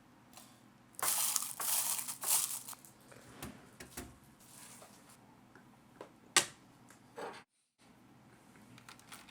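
Packaged ice being handled: crinkling, crunching plastic with ice shifting inside in bursts from about one to three seconds in. A few sharp clicks follow, the loudest near six and a half seconds.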